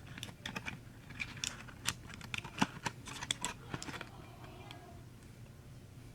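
Cold-medicine packaging being handled: a quick, irregular run of sharp clicks and crinkles that stops about four seconds in.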